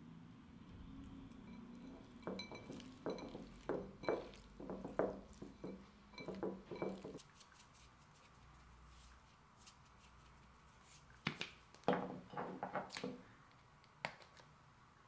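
Hands mixing raw sliced beef and garlic slices in a stone bowl: a run of soft, wet knocks and clinks against the bowl for about five seconds. Later a quick, louder cluster of sharp clicks and taps as salt and pepper containers are handled, and one more tap near the end.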